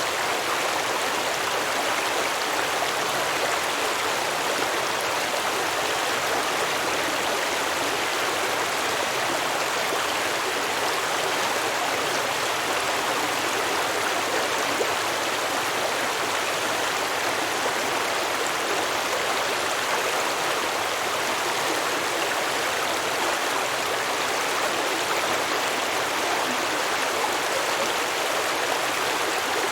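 A small stream flowing and babbling over rocks, a steady, even rush of water.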